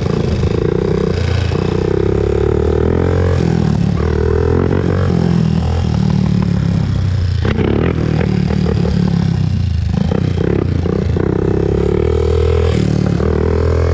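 Honda TRX400EX ATV's single-cylinder four-stroke engine running as it is ridden, its revs stepping up and down. It eases off around seven and a half seconds and picks up again.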